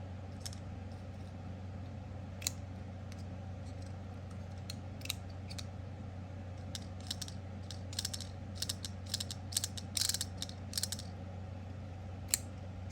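Small metal clicks and snaps of a magnetic fidget toy being worked in the hand, its magnets locking parts into place. The clicks are sparse at first and come quicker from about seven seconds in, with a short rattle of clicks around ten seconds.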